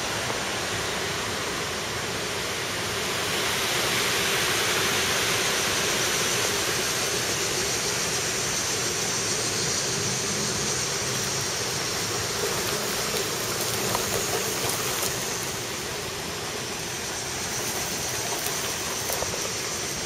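Rain falling steadily, an even hiss that grows louder a few seconds in and eases off again near the end.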